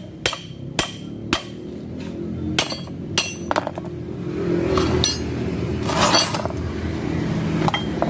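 A hammer striking steel, about two sharp blows a second for the first second and a half. Then a few more strikes and scattered metal clinks and knocks as leaf-spring parts are handled.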